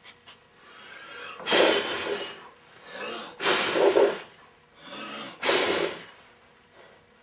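Three short puffs of air, about two seconds apart, blowing loose magnetic inspection powder off a cast iron cylinder head during a Magnaflux crack check.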